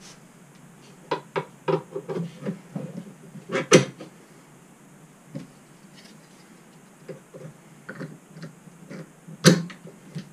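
Clicks and knocks of a gas strut and wooden bracket block being handled and fitted together: a run of light clicks, a loud knock nearly four seconds in, scattered taps, and another loud knock near the end.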